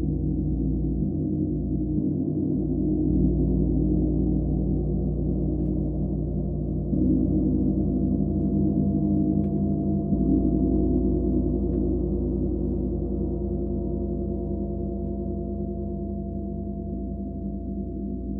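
Gong ringing in a deep, sustained wash of overlapping tones. It swells louder about three, seven and ten seconds in, then slowly dies away.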